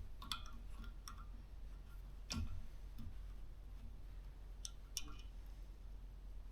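Scattered small clicks and taps of fittings and parts being handled while an air compressor's pressure switch wiring and cable clamp are fitted, with one duller knock about two and a half seconds in, over a faint steady hum.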